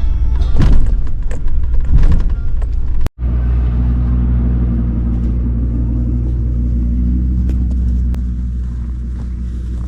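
Truck engine running with a steady low drone. In the first few seconds there are loud rattles and knocks, then an abrupt cut about three seconds in.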